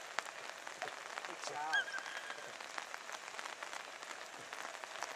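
A small Italian hare-hound (piccolo lepraiolo) bays once, a rising-and-falling cry about a second and a half in with a short held note after it. This is the hound giving tongue on a hare's trail. Under it runs a steady crackle of fine clicks.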